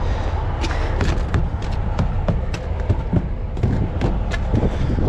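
Footsteps crunching on frozen ground, irregular knocks about two a second, over a steady low rumble.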